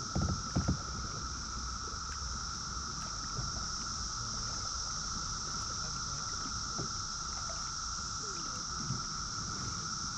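Steady, unbroken drone of an insect chorus from the riverside woods, sitting in two high-pitched bands, with a few low knocks in the first second.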